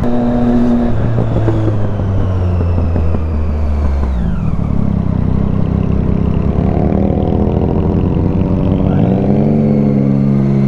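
Triumph Street Triple's three-cylinder engine heard from the rider's seat while filtering through traffic: it runs steadily, drops in pitch about four seconds in as the throttle is rolled off, then rises again near the end as the rider accelerates.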